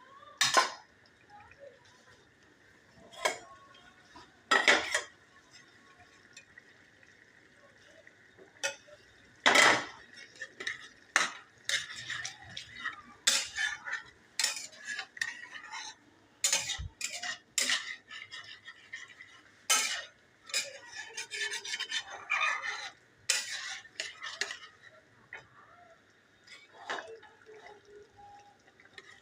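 Metal spoon stirring and scraping in a cooking pot of chana dal, clinking against the pan in irregular strokes that come thick and fast through the middle of the stretch.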